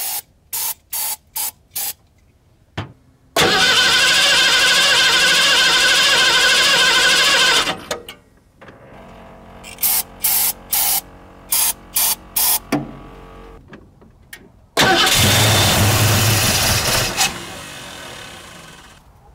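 Short squirts of an aerosol spray into the carburetor of a small-block Ford V8. The engine then fires and runs loudly for about four seconds before stalling. After more squirts it fires again for about two seconds and dies away: it is running only on the sprayed fuel and not yet drawing fuel through its own pump after 15 years of sitting.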